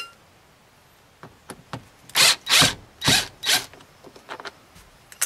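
Cordless power driver backing out the screws that hold the door-sill carpet trim, in four short bursts between about two and three and a half seconds in, with small clicks and taps around them.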